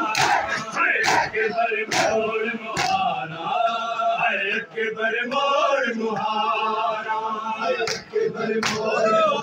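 Male mourners chanting a noha in unison, with rhythmic chest-beating (matam) slaps about one a second in the first three seconds. The slaps drop out for a stretch of held chanting in the middle and return near the end.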